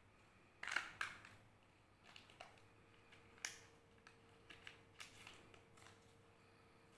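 Crinkling and crackling of a Kinder Joy's foil lid being handled and peeled off its plastic tray: a string of sharp crackles and clicks, the loudest about a second in and again about three and a half seconds in.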